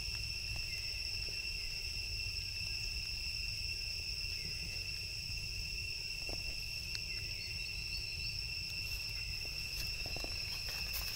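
Insects keep up a steady, high-pitched drone of unbroken tones, over a faint low rumble.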